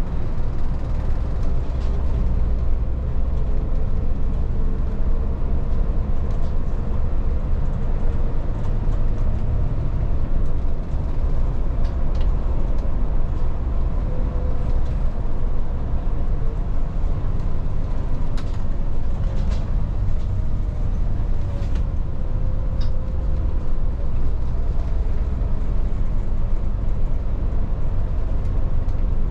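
Volvo 8900 bus heard from inside the cabin while driving: a steady low rumble of engine and road noise, with a few light clicks or rattles now and then.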